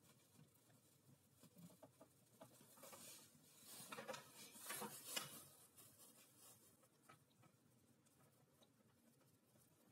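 Near silence, broken by faint handling noises: a small plywood block and small metal parts being picked up and moved on a wooden bench. There are soft rustles and a few light clicks, mostly around four to five seconds in.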